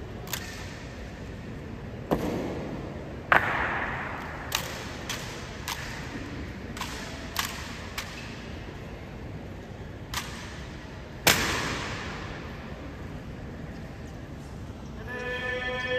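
Honour guard rifle drill: about a dozen sharp knocks and slaps from rifle butts and boots striking a hard floor, irregularly spaced, each echoing in a large hall. The loudest come a few seconds in and again after about eleven seconds.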